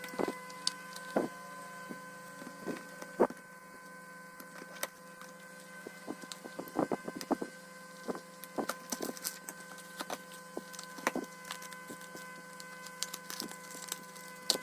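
Irregular clicks and taps of something being handled, denser in the second half, over a steady electrical hum.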